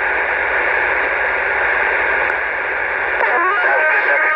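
CB radio speaker carrying a keyed-up transmission with no voice on it: steady hiss and static with a thin steady tone and a low buzz underneath. A voice comes in faintly about three seconds in.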